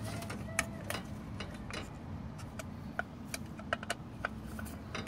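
A screwdriver turning the hold-down screws of a new distributor cap on a Chevy 4.3L V6, making irregular small clicks and ticks of metal on metal and plastic. A low steady hum runs underneath.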